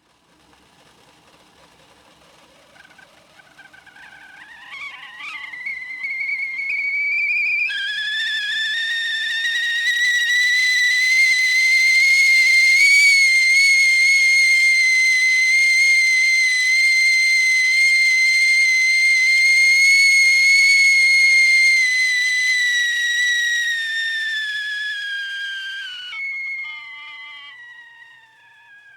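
Whistling kettle coming to the boil. A faint whistle rises in pitch over several seconds, then, about a quarter of the way in, breaks into a loud, steady whistle with overtones. Near the end it suddenly weakens to a thinner whistle that slides down in pitch and fades.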